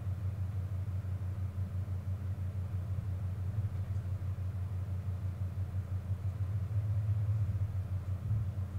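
Steady low mechanical hum with a quick, even flutter in its loudness, like a motor running.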